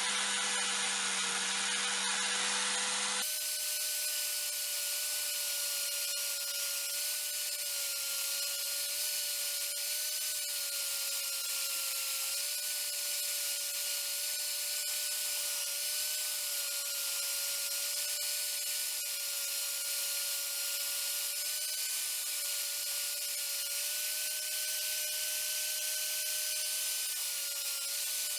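Electric power tool running steadily: a motor whine that wavers slightly in pitch, with a loud hiss over it. The pitch shifts once about three seconds in.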